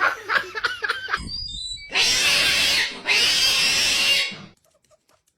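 A pet animal making short calls that bend in pitch, then two long, loud, harsh cries of about a second each.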